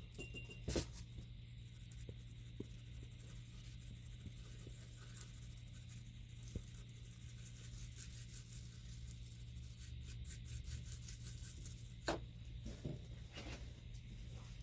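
Toothbrush scrubbing a circuit board with alcohol to clear off soldering flux, a faint scratchy brushing with a few sharp clicks, over a steady low electrical hum.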